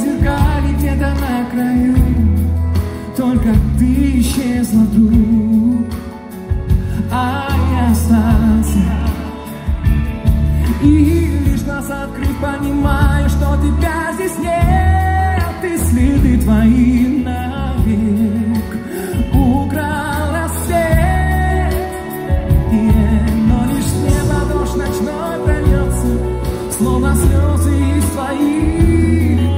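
Male singer performing a pop ballad live into a microphone, backed by a band with a heavy bass line, heard through the hall's amplification.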